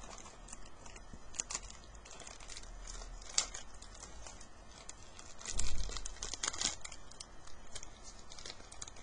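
Hockey trading cards being handled and flipped through: paper-card rustling with many small ticks, and a louder rustle with a low bump about five and a half seconds in.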